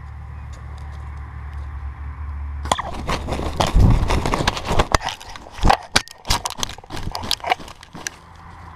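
A wild turkey tom beating its wings and flopping in dry grass right against the camera after a broadhead shot to the head: a sudden burst of heavy wing flaps and thumps a few seconds in, loudest at the start, then irregular strokes that die down near the end. The thrashing is the death flopping of a decapitated bird.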